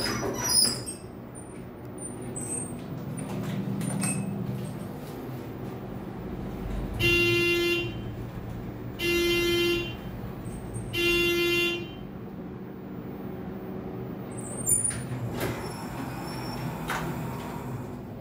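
Elevator car riding up with a steady low hum, and three short buzzing beeps from the elevator about two seconds apart in the middle. A sharp knock just after the start and a click later on.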